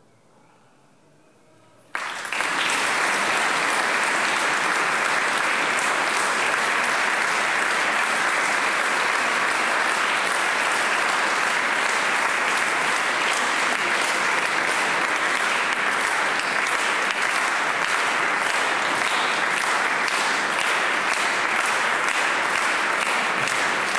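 Audience applauding: after a brief hush, clapping breaks out suddenly about two seconds in and then holds steady.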